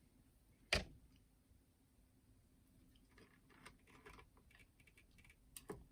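Quiet handling of small parts in an opened cassette deck: a sharp click about a second in, faint scattered clicks and rustles, and another click near the end.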